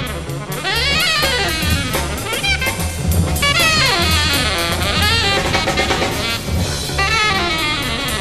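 Free jazz played live by a quintet: trumpet and saxophones in fast lines that slide up and down in pitch, over a busy drum kit with cymbals and a walking double bass.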